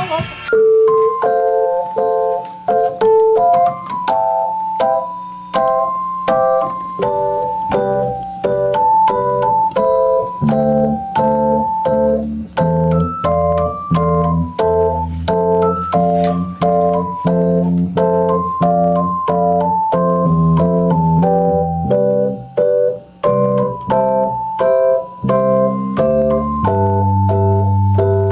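Piano-style keyboard played with both hands: a steady run of repeated chords and melody notes, with a deeper bass line joining about ten seconds in.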